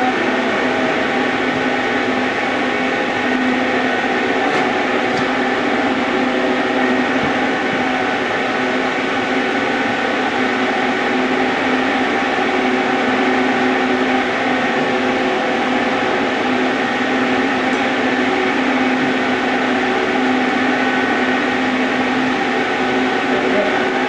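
Arc welding: a steady hiss with an electrical hum underneath, running without a break.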